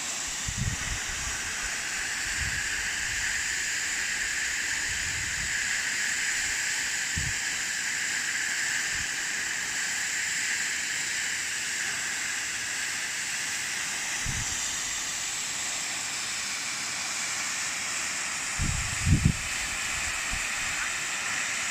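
Waterfall rushing steadily, an even hiss of falling water. A few brief low thumps break in, the loudest pair near the end.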